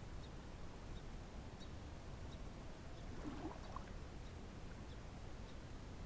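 Faint outdoor background: a low, uneven rumble with faint high ticks every second or so, and one brief short sound about three seconds in.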